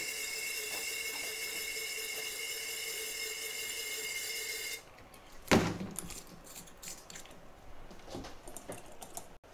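A steady machine whine made of several held tones cuts off suddenly about five seconds in. One sharp knock follows, then a few faint clicks.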